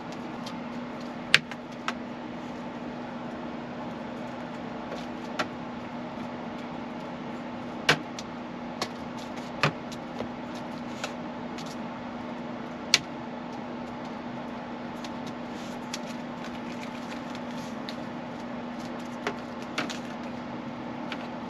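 A steady mechanical hum with one constant tone, like an appliance or fan running, with a dozen or so short sharp taps and clicks scattered through it.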